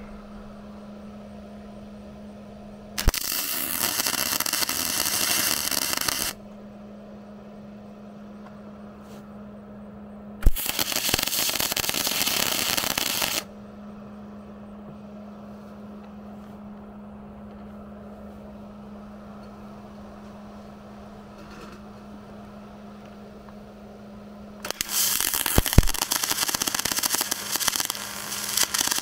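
Wire-feed (MIG) welder arc crackling and sputtering against steel tubing in three bursts of a few seconds each, the last starting near the end, with a steady low hum between them.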